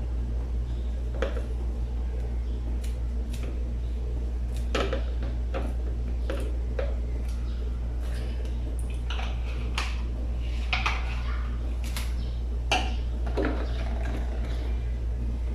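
Irregular clinks and knocks of hard objects being handled, over a steady low hum.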